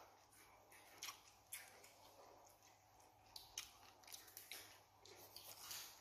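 Near silence with a few faint scattered clicks, then a soft paper rustle near the end as a sheet of card is picked up by hand.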